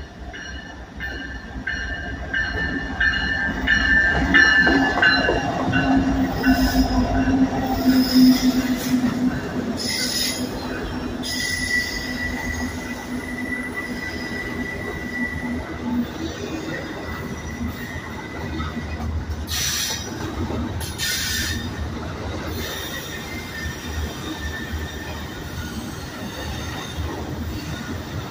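Norfolk Southern freight train passing close by: the diesel locomotives go past with a loud rumble and engine drone in the first third, then double-stack intermodal container cars roll by steadily. A high, steady wheel squeal starts about a third of the way in, and a few sharp squeals or clanks come near the middle.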